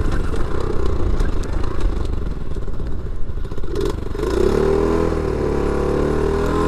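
Small pit bike engine running under the rider. About four seconds in, the throttle is opened and the revs climb and fall a couple of times, as in a wheelie attempt.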